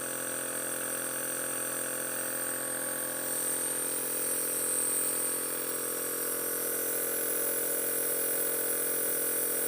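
Compressor nebulizer running steadily, a constant mechanical hum with a high hiss of air.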